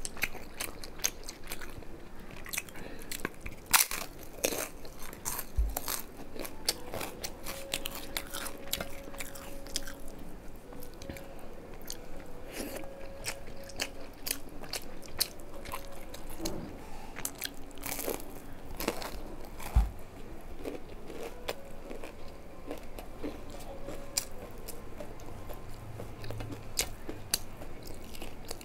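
Close-up eating sounds of a person chewing a rice-and-curry meal eaten by hand: a steady run of wet mouth smacks and chewing, with crunches of fried fritters. Twice a dull knock is heard.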